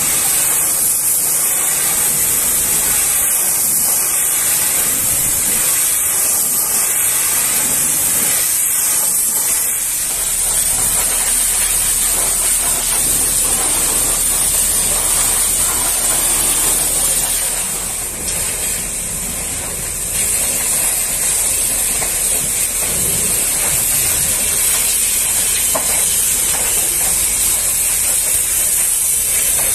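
Steady hiss of a pressure washer's water spray striking a truck trailer's curtain side. A low steady hum joins at about ten seconds.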